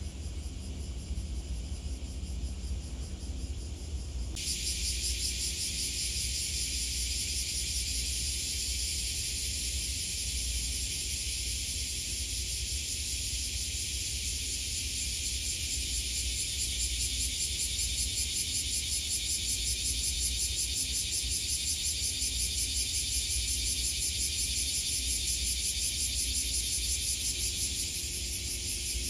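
Cicadas droning in a steady, fast-pulsing high buzz that sets in about four seconds in, over a low rumble.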